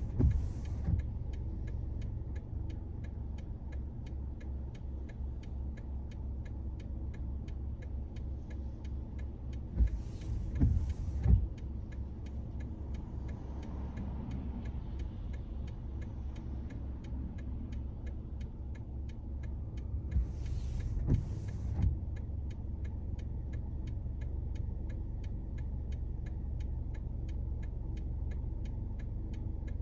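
A car's steady low engine and road rumble, heard from inside the car. Brief paired swishes come about every ten seconds, typical of windscreen wipers on an intermittent setting in rain.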